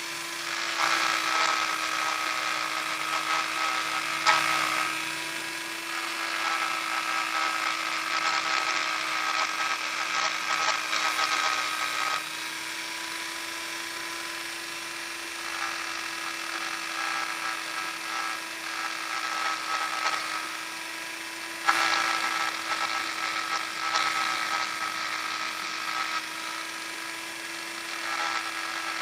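Electric sander running at a steady pitch, with louder scratchy stretches coming and going as it sands.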